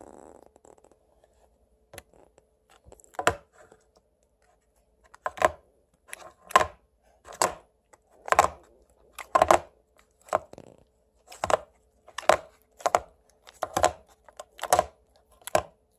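Cherry blossom slime being poked and pressed by hand, giving a sharp sticky pop about once a second, about a dozen in all, starting a few seconds in.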